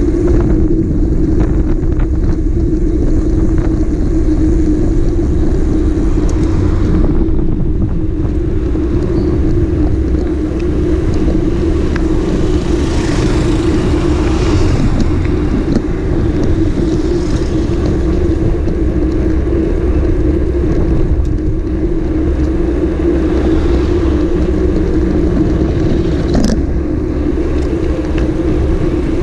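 Sport bike engine running at a steady cruising speed: one constant drone over a heavy rumble, with rushing noise above it.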